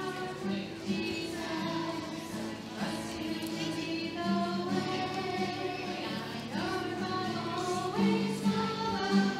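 A group singing a song together with musical accompaniment, the sung melody running over a steady repeating bass line.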